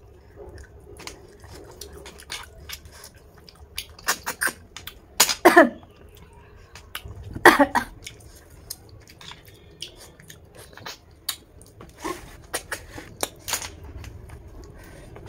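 A person sucking snails out of their shells with sharp, wavering slurps. The two loudest come about five and a half and seven and a half seconds in. Between them are smaller sucks, chewing and light clicks of shells.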